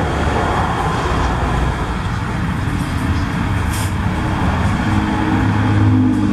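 Steady motor-vehicle engine and road noise, a low hum under an even rush.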